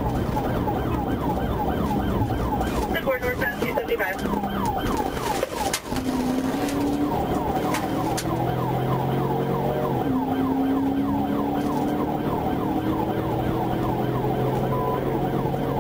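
Police car siren on a rapid yelp, about four sweeps a second, over the patrol car's engine and road noise. The engine climbs in pitch as the car accelerates, drops back once about ten seconds in, then climbs again.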